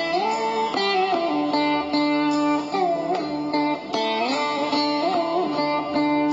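Background music led by a plucked string instrument with a sitar-like sound, playing a melody with bending, gliding notes over a held drone.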